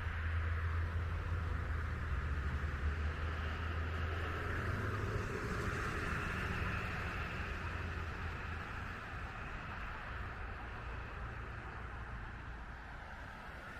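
Street traffic: a passing vehicle's low engine rumble and tyre hiss, swelling and then fading away over the last few seconds.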